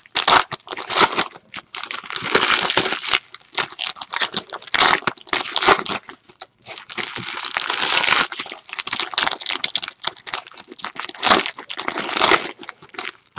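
Foil trading-card pack wrappers being torn open and crumpled by hand: crinkling and ripping in irregular bursts with brief pauses.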